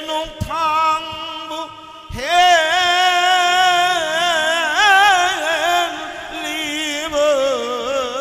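Male kirtan singer holding long Manoharshai kirtan phrases with wide, wavering ornaments over a steady drone. There are two low thumps, one just after the start and one about two seconds in.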